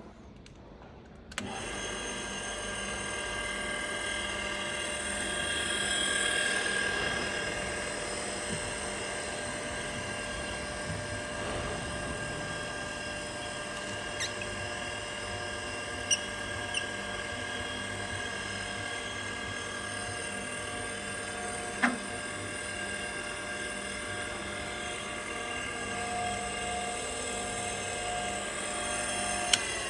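Repco Power SBO surface grinder switched on about a second and a half in, its motor and grinding-wheel spindle then running with a steady whine. A few sharp clicks sound over it.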